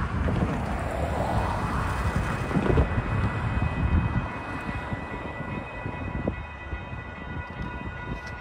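Railroad crossing warning bell starting to ring about a second in, a steady ringing tone that carries on as the crossing activates for an approaching train. Underneath it is low wind rumble and passing road traffic, which are loudest in the first half.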